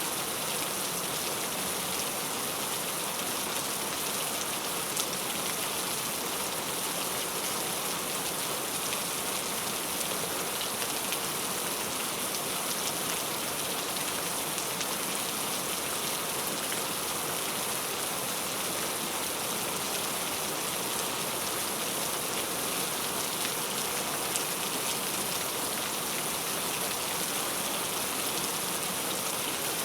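Heavy rain falling steadily on surfaces, an even hiss of many drops with occasional small ticks of individual drops.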